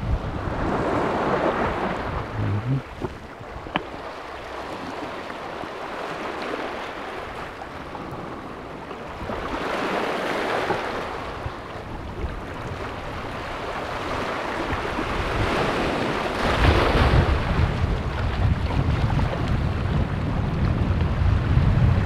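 Small sea waves washing in over a pebble and stone beach and draining back, swelling three times. Wind buffets the microphone with a low rumble from about two-thirds of the way in.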